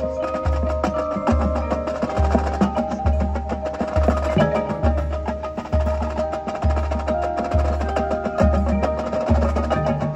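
Marching band playing its field show, with mallet percussion notes over a low bass note that pulses a little faster than once a second.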